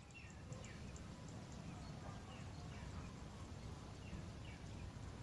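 Faint outdoor ambience: a low rumble with short, falling chirps that repeat every half second or so.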